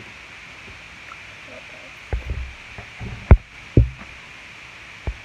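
Handling noise on the recording device: a few short, low thumps and bumps starting about two seconds in, the two loudest close together past the middle and a last one near the end, over a steady hiss.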